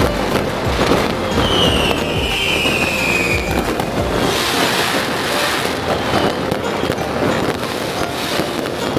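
Fireworks going off in a dense, continuous crackle of pops and bangs. A whistling firework sounds for about two seconds early on, its pitch falling slightly. A hissing surge follows about four seconds in.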